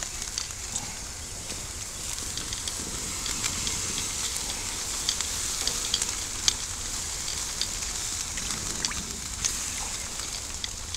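Thin vinegar mop sauce sizzling on chicken over hot charcoal as a cotton basting mop dabs it on: a steady hiss with many small sharp crackles and pops.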